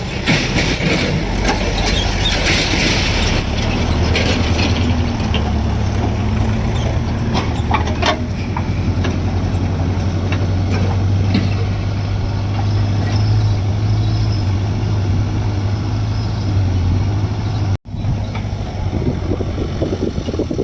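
Heavy diesel engine running steadily with a low hum, with a hissing, clattering spell in the first few seconds. The sound cuts out for an instant near the end.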